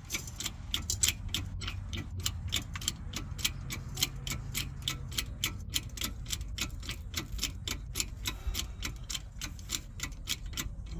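Rapid, even mechanical clicking, about four to five clicks a second, over a steady low hum.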